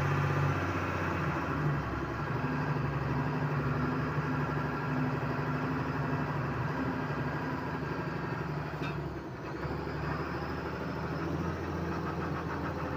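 Tipper truck's diesel engine running steadily as the truck drives, heard from inside the cab. The engine sound briefly drops about nine seconds in.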